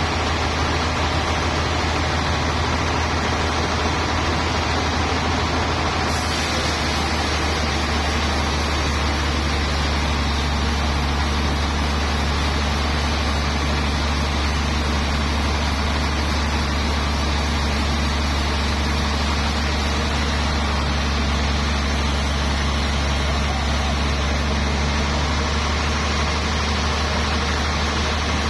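Sawmill machinery running steadily: a constant low engine-like drone with an even hiss above it, slightly brighter from about six seconds in.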